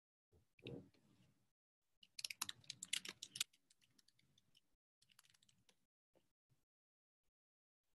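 Computer keyboard typing over a video call: a quick run of sharp key clicks about two to three and a half seconds in and a few fainter ones later, with a short low sound just before, and dead silence between where the call's audio cuts out.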